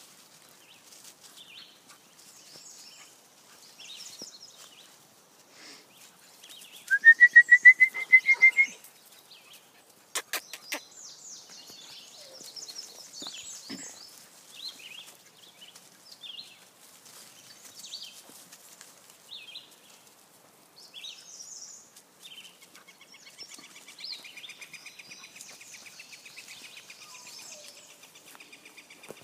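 Trilling animal calls in the open: a loud, short rising trill about seven seconds in, a few sharp clicks a little later, scattered faint chirps, and a long softer trill that runs through the last few seconds.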